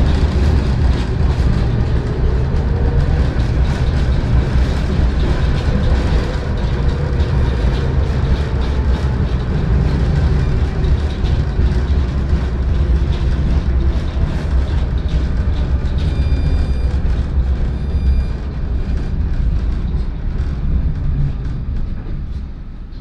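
Tram running on its rails, heard from inside the car: a heavy low rumble with rattling clicks from the wheels and body. A brief thin high ring comes about two-thirds of the way through, and the sound eases off near the end as the tram slows to a halt.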